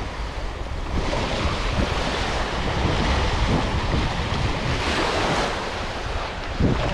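Small waves breaking and washing up a sandy shore, with wind rumbling on the microphone. A wash of surf swells about five seconds in, and a brief thump comes near the end.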